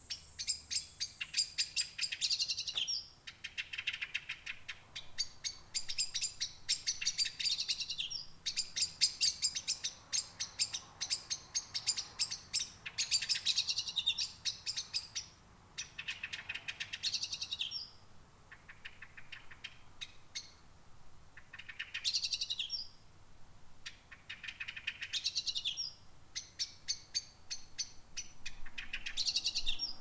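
A songbird singing at night in repeated phrases every two to three seconds. Each phrase is a fast run of clicking notes ending in a slurred, bending note.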